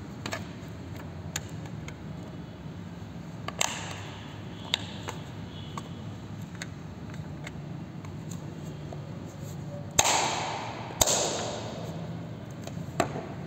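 Handling noise from a hollow plastic power bank case: scattered light clicks and knocks, with two louder clattering knocks about ten and eleven seconds in.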